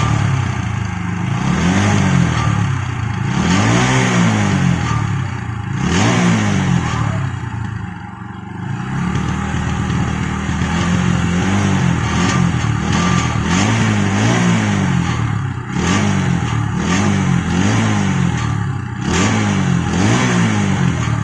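TVS Apache RTR 160 4V single-cylinder engine revved again and again, its pitch rising and falling with each throttle blip, with a metallic 'chhan' jingling rattle from the exhaust as each rev tops out. The rattle is the exhaust fault that got the silencer replaced under warranty; the owner suspects its internal mesh is damaged.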